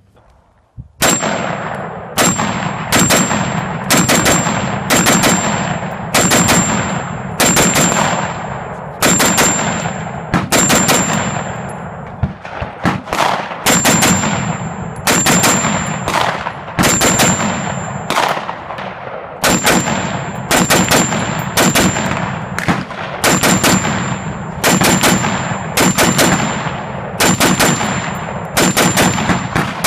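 Short-barrelled 5.56 AR-15 with a 7.5-inch barrel fired semi-automatically, unsuppressed: loud shots in steady strings of about one to two a second, with two short pauses, one about twelve seconds in and one just before twenty. A thin high ringing tone hangs between the shots.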